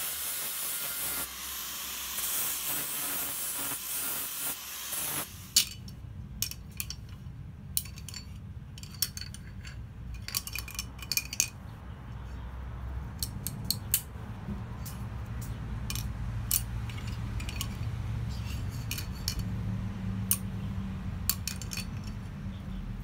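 A steady hiss for about the first five seconds, then many sharp metallic clicks and clinks as the steel jaws and handles of small flat-jaw blacksmith tongs are worked and knocked against a steel block.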